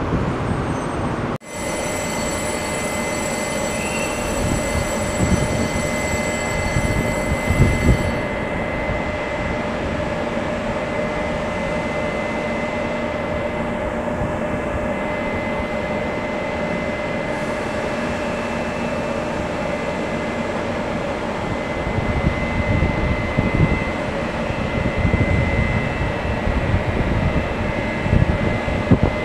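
Taiwan Railway E200-class electric locomotive standing at the platform with its coaches, its equipment running with a steady hum. A thin high whine sounds over it for the first several seconds, then stops.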